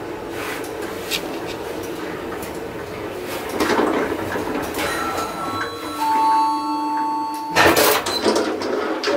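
Modernised passenger elevator riding in its shaft with a steady hum. From about halfway in, a few steady electric tones sound, and near the end there is a loud clatter of knocks as the car stops and its sliding car doors open.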